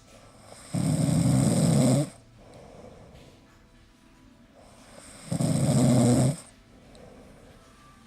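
Snoring: two loud snores, each a little over a second long, about four and a half seconds apart.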